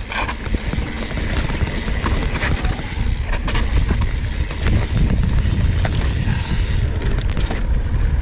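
Cannondale Scalpel-Si mountain bike descending dirt singletrack at about 15 mph: a constant low rumble of wind on the microphone and Maxxis Ikon tyres rolling over hard pack with loose dirt on top, with scattered clicks and rattles from the bike over bumps.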